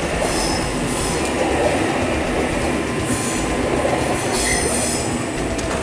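An H-set (OSCAR) electric intercity train standing at the platform with its doors open. It makes a steady running noise, with short high-pitched whines that come and go.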